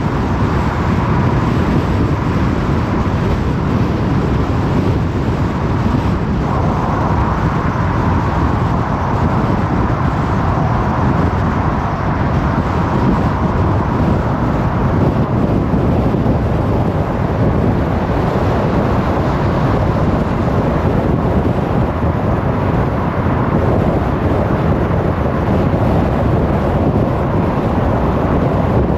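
A car driving along a road: steady rush of tyre and wind noise with the engine underneath, unchanging throughout.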